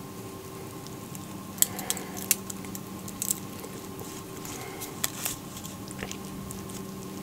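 Gloved hands tearing open and peeling a stone-baked Beni Azuma sweet potato: soft squishing of the hot flesh and skin, with a scatter of short sharp crackles and clicks over a steady low hum.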